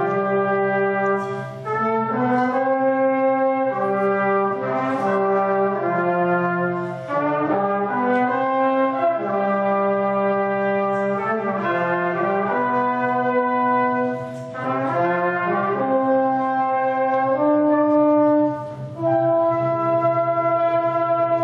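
Concert wind band playing a brass-led passage of held chords that change every second or two, with short breaks between phrases.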